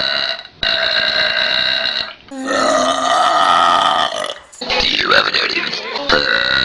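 A person belching: a run of long, drawn-out burps, each lasting one to two seconds, with short breaks between them.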